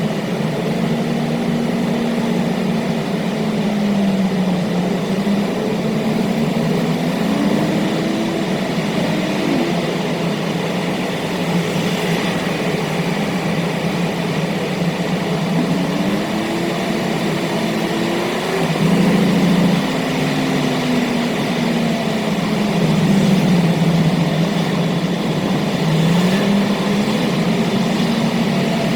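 Car driving at speed, its engine note climbing with revs and dropping back several times over steady road noise.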